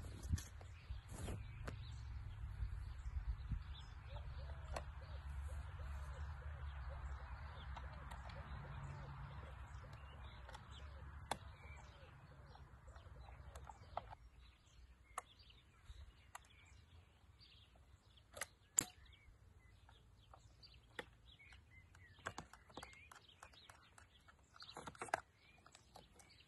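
Birds chirping outdoors over a low rumble and hiss that fade about halfway through. A few sharp clicks and knocks from hands working a large-format field camera stand out, the loudest about 18 and 25 seconds in.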